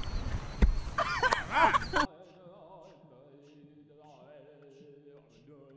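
People whooping and yelling outdoors over wind on the microphone, reacting to a shot anvil flying overhead, with one sharp knock under a second in. About two seconds in the sound cuts off abruptly to faint music with singing.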